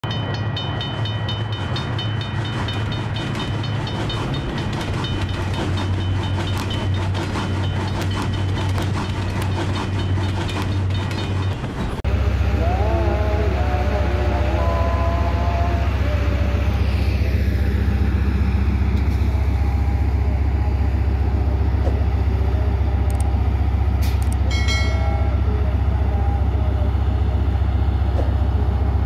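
A rhythmic electronic intro sound. Then a diesel locomotive's deep, steady engine rumble as it hauls a passenger train through the station, with a brief pitched blast about 24 seconds in.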